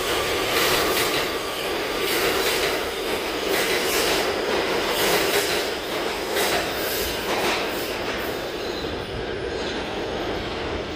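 New York City subway R211T train running through the station, its wheels clacking over the rail joints with some wheel squeal. The sound fades and dulls near the end as the train pulls away into the tunnel.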